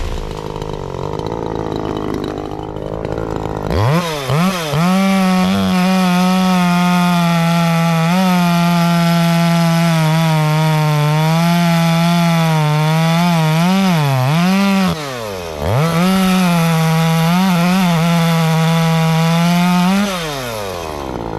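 Echo CS-3510 two-stroke chainsaw idling, then revving to full throttle about four seconds in and cutting wood, its pitch sagging and wavering under load. It drops back to idle for a moment about three-quarters through, revs up and cuts again, then settles to idle near the end.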